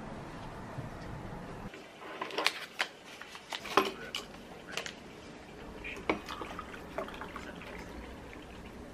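Dishes and cutlery clinking and knocking: a series of sharp taps, some with a short ring, starting about two seconds in and spaced roughly a second apart.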